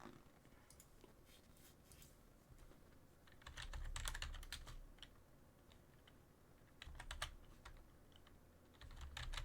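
Computer keyboard being typed on in three short bursts of clicks, with low desk thuds under each burst and near silence between them.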